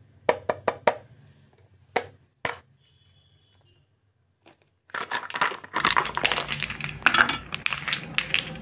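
Sharp clicks from handling a small metal poster-colour tin: a quick run of four in the first second and two more around two seconds in. From about five seconds in, small plastic paint bottles clatter and knock together continuously as they are handled and tipped out into a hand.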